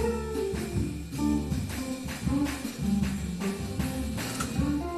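Background music with a steady beat and jingling percussion like a tambourine.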